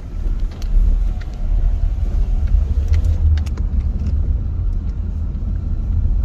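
Steady low road and engine rumble inside a moving Toyota car's cabin on a wet road, with a few scattered light ticks.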